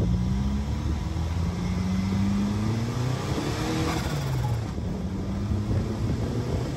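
Turbocharged air-cooled VW engine of a dune buggy, heard from the open cockpit while driving on its new standalone fuel injection. The engine note climbs under acceleration, dips about two and a half seconds in, climbs again, then falls off about four seconds in.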